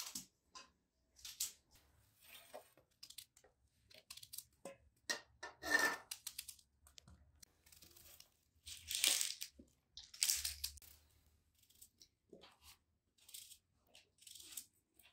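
Irregular, short rustling and tearing sounds, about a dozen spread unevenly, each under a second, with the loudest ones about halfway and two-thirds of the way through.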